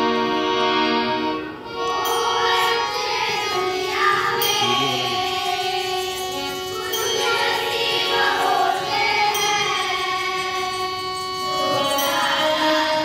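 Instrumental music, a song's intro: held notes for about the first second and a half, then a moving melody.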